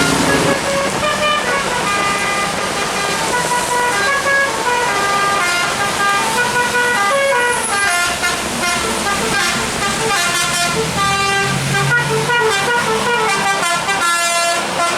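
Bus 'telolet' musical air horn playing a quick melody of short notes that step up and down in pitch.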